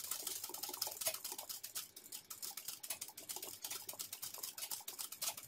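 Domestic sewing machine stitching a satin-stitch fill in free-motion embroidery. Its needle mechanism gives a rapid, even run of faint clicks.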